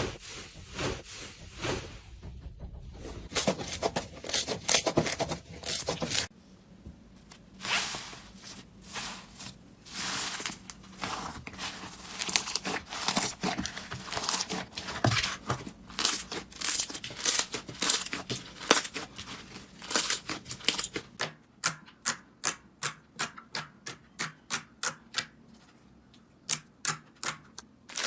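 Slime being squeezed and pressed by hand, giving dense crackling and popping. About three quarters of the way through it changes to a run of evenly spaced crisp clicks, roughly three a second.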